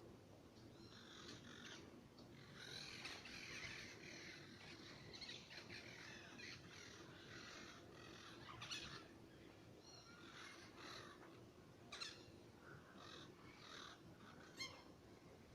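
Several birds calling and singing over one another in a faint chorus of chirps and whistles, with a few sharper, louder calls standing out in the second half.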